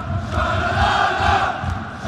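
Stadium crowd of football fans chanting a song in unison over a steady low beat about three times a second. The singing dips briefly near the end.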